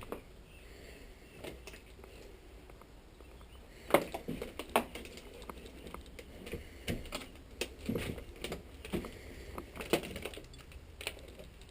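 Footsteps on an old floor: irregular clicks and knocks that start about four seconds in, the first one the loudest.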